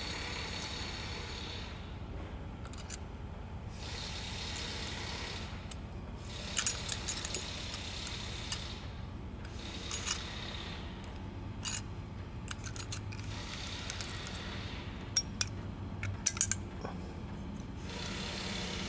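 Thin steel brake pad clip being pushed and worked by hand into a disc brake caliper bracket: scattered small metallic clicks, clinks and scrapes, in several clusters through the middle and second half, over a steady low background noise.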